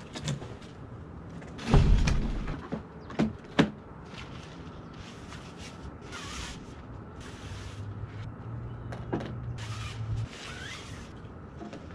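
Handling noise as the camera is set down with a heavy thump about two seconds in, followed by two sharp knocks. After that come short rustling swishes as a fishing rod's sections are handled and fitted together, with a low steady hum joining for about three seconds past the middle.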